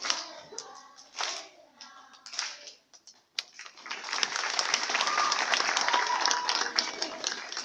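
Children's voices at the end of a group number, then, after a brief pause, an audience of parents breaks into sustained applause about four seconds in.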